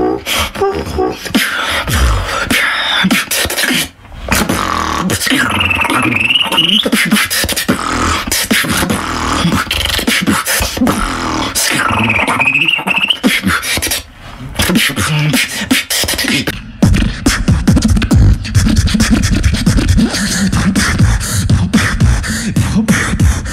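Solo human beatboxing: rapid mouth-made kick, click and snare sounds, with a whistling tone that rises and falls twice. From about two-thirds through, a heavy bass line runs under the beats.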